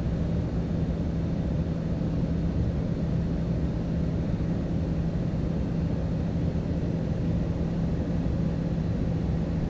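Steady low engine rumble with a constant low hum, unchanging throughout.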